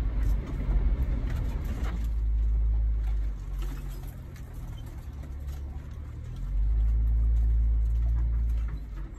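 Jeep Wrangler Rubicon driving slowly on a rough dirt trail, heard from inside the cab: a low engine rumble that swells twice as the throttle opens, about two seconds in and again past the middle, with light ticks and rattles from the vehicle.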